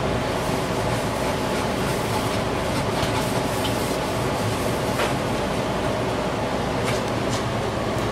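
Steady mechanical hum and drone from running machinery, with a few faint clicks and taps.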